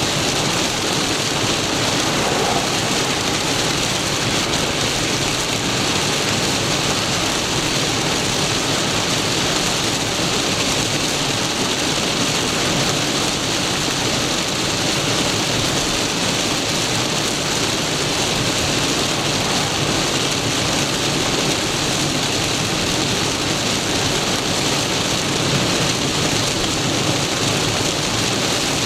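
Torrential rain pelting a moving car's roof and windshield, heard from inside the cabin, mixed with the hiss of tyres on the flooded road. A steady, dense rush with no let-up.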